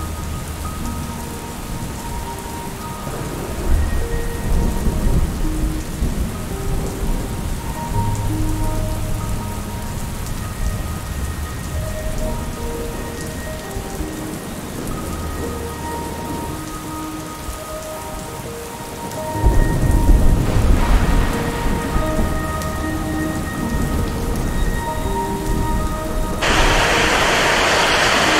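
Rain falling with rolls of thunder: low rumbles about four seconds in and again about twenty seconds in. Near the end a heavier, steady rain hiss comes in suddenly and louder.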